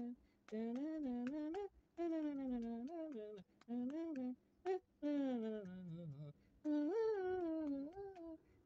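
Someone humming a tune in short phrases of about a second each, the pitch gliding up and down, with brief pauses between phrases.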